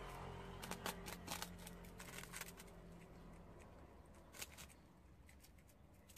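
Prairie dogs nibbling on puffed rice cakes: faint, irregular crisp crunches, a burst of them in the first half and a few scattered ones later, over a low steady hum.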